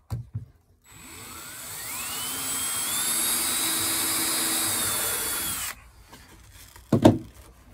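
Cordless DeWalt drill driving a self-tapping hidden deck screw at an angle into the edge of a redwood deck board: the motor winds up over about a second and a half, runs steadily at a high whine for about three seconds, then stops. A sharp knock follows about a second later.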